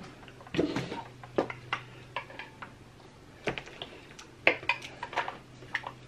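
Table knives clicking and tapping against plates and a butter dispenser as sticks of butter are cut, in irregular short clinks over a faint steady low hum.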